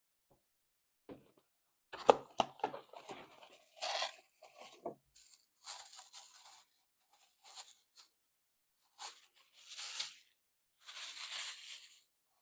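Small cardboard box and its packaging being opened by hand: irregular bursts of tearing and rustling, with a few sharp clicks about two seconds in.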